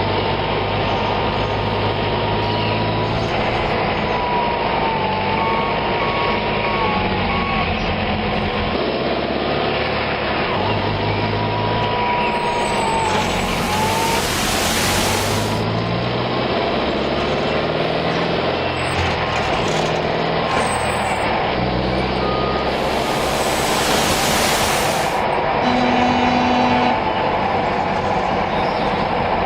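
Heavy truck engine running, with two long air-brake hisses of about two seconds each, the first about 13 seconds in and the second about ten seconds later.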